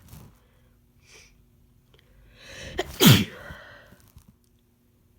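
A person sneezing once, uncovered, about three seconds in: a short in-breath building up, then one sharp burst that drops in pitch.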